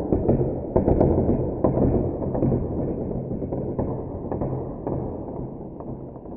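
A deep, rumbling boom with scattered sharp cracks, fading slowly over several seconds: a dramatic impact sound effect laid over the slow-motion dice.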